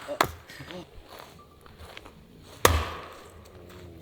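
An axe splitting firewood: a light knock near the start, then one heavy chopping strike into a log about two-thirds of the way through.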